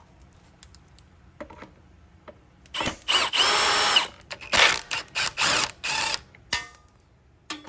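Power drill-driver backing out the screws that hold the engine's top cover: one steady whining run of about a second, then several short bursts, after a few small handling clicks.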